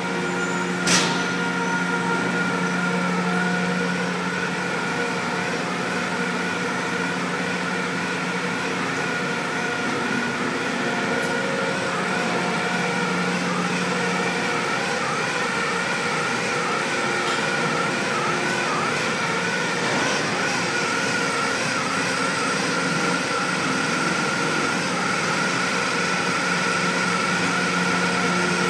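Steady drone of grain loadout machinery, the conveyor and loading spout, with a high whine that wavers up and down for a while in the middle. A single sharp click about a second in.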